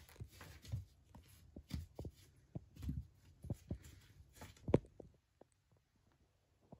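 Cats batting and pawing at a cardboard cat house: a run of soft, irregular thumps and scuffs on the cardboard. The loudest knock comes a little under five seconds in, and then the thumping stops.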